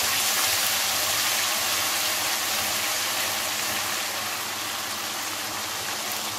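Ginger-garlic paste frying in hot oil in a wok: a steady sizzle that eases a little after about four seconds.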